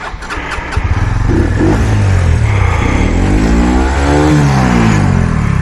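Brixton Felsberg 125's single-cylinder engine running under throttle as the motorcycle gets going: its pitch climbs to a peak about four seconds in, then drops back. A few light clicks come in the first second.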